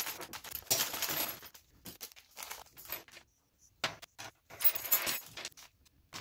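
Small hard parts being handled: irregular light clicks and clatter mixed with short bursts of rustling, with a brief pause a little past the middle.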